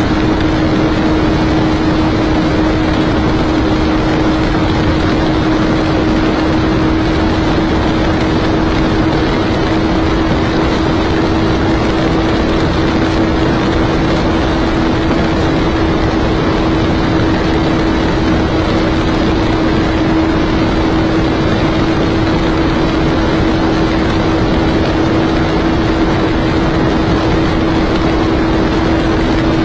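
A 250 cc motorcycle engine held flat out in sixth gear at top speed, a steady drone at almost constant pitch, under heavy wind rush.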